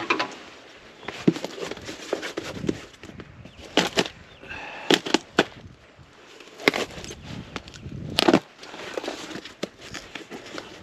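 Hands handling and opening a mail-order package: irregular clicks, snaps and rustling crackles of cardboard and packaging, with several sharper snaps in the middle.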